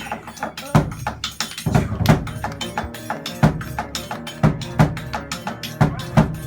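Music with a busy drum pattern: many sharp percussion strikes a second, with heavier low drum hits every half second to second, over a few held notes.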